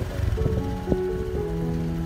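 Background music of held notes changing about every half second, over a low steady rumble.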